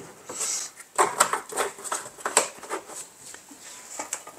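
A series of short knocks and clicks from plastic containers and the still being handled on a wooden kitchen worktop.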